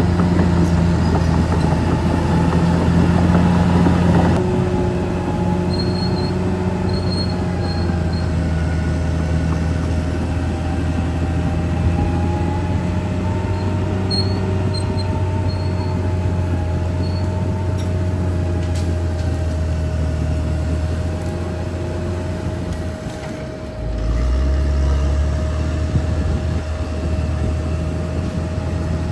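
Caterpillar D6R XL bulldozer's diesel engine running steadily with a constant whine, and a few short high squeaks from its steel tracks. The engine note drops briefly about 23 seconds in, then comes back up.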